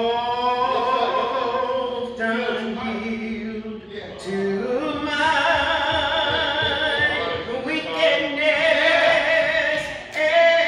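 A woman's solo voice singing a slow gospel song unaccompanied, holding long notes and sliding between them.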